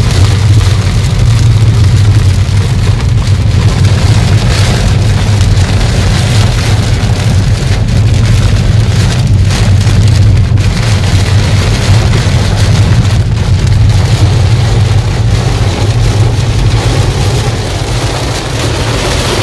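Heavy rain beating on a car as it drives, over a steady low rumble from the car.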